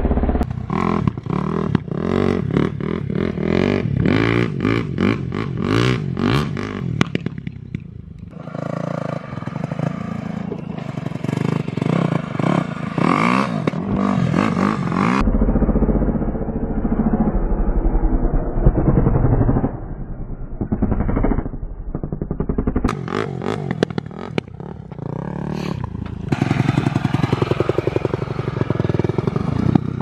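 A KTM SX-F 250's single-cylinder four-stroke engine, fitted with an Akrapovič exhaust, revving up and down as the dirt bike is ridden, in several shots joined by abrupt cuts.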